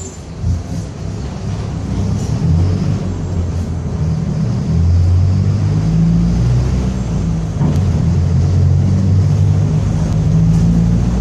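Mercedes-Benz OF-1722M city bus under way, its four-cylinder turbodiesel pulling and its differential growling. The sound gets louder over the first five seconds, with the low note shifting in steps.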